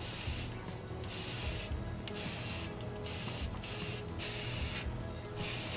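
Aerosol spray-paint can hissing in about seven short bursts of roughly half a second each, as gloss orange-yellow paint is sprayed onto a bicycle wheel's spokes.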